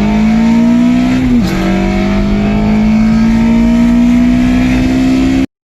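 Honda K24A2 four-cylinder engine with a cold air intake, accelerating hard on a VTEC pull. The engine note rises, drops sharply on an upshift about a second and a half in, then climbs steadily again before cutting off abruptly near the end.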